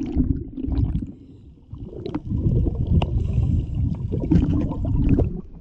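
Muffled underwater rumbling and gurgling of air bubbles from a scuba diver's regulator, heard through a GoPro's waterproof housing, in irregular surges with a short lull a little after the first second.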